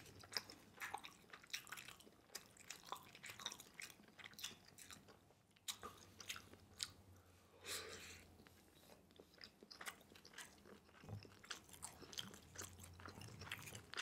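Faint, close-up chewing of pan-fried rice rolls (cheung fun): soft wet mouth sounds broken by many small clicks and smacks.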